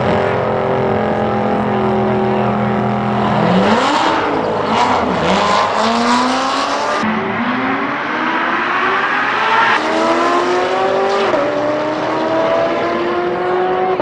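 An Audi RS7 and a C7 Corvette, both V8s, drag racing. Both engines hold steady on the start line, then launch about three and a half seconds in, revs climbing with several upshifts as the cars accelerate down the strip.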